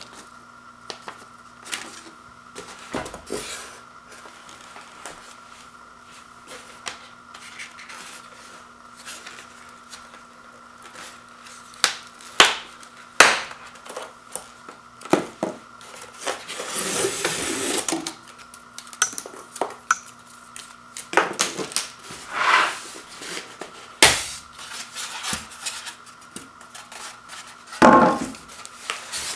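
Hands unpacking a speaker kit: a strap pulled off styrofoam packing and the foam pieces and wrapped speakers handled, making irregular knocks, squeaky scrapes and rustles, with a longer rustling scrape about halfway through. A faint steady hum sits underneath.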